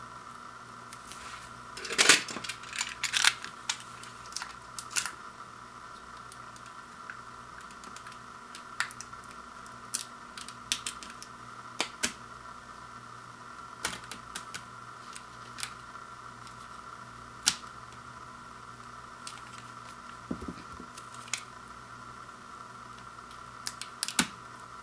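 Plastic shrink wrap on a vinyl LP jacket crackling in scattered sharp clicks and snaps as it is picked at and slit along the jacket's edge with a utility knife, with a cluster of louder crackles about two seconds in. A faint steady high hum runs underneath.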